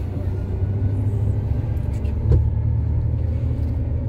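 Steady low rumble of a long-distance bus on the road, heard from inside the passenger cabin, with a single knock a little over two seconds in.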